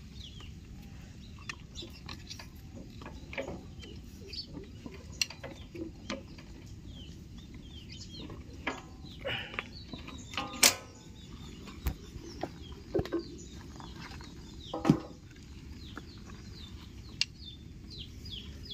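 Hand work on a power tiller's rubber V-belt and steel pulleys: scattered clicks and knocks as the belt is worked onto the pulley, the two loudest knocks about ten and fifteen seconds in. Birds chirp and chickens cluck in the background.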